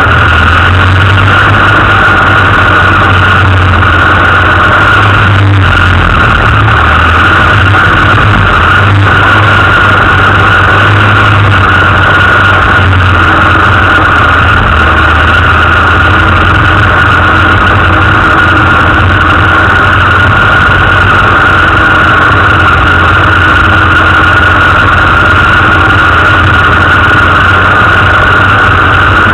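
Land Rover engine running steadily, loud and close to the microphone, with an even drone that barely changes throughout.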